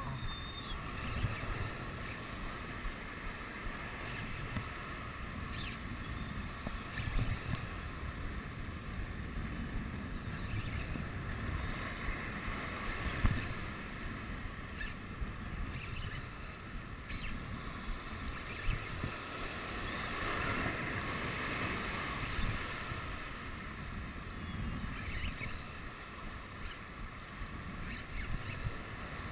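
Surf washing over shoreline rocks, with wind rumbling on the microphone and a spinning reel being cranked steadily; one louder thump about halfway through.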